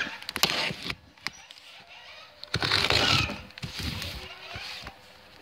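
Cardboard boxes being handled and shifted, sliding and scraping against each other in rustling bursts, the loudest about three seconds in.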